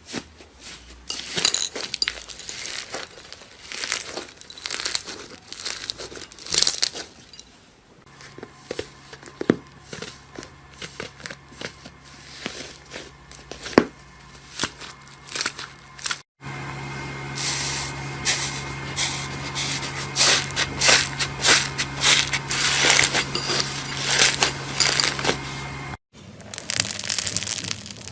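Slime being squeezed, poked and pulled by hand, with rapid trains of sticky crackling clicks and pops in several short clips.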